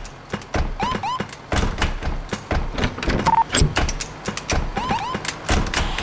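A percussive beat built from recorded everyday sounds: a rhythm of sharp knocks, clicks and thuds, with two short rising chirps about a second in and again near the end, and a brief beep a little past the middle.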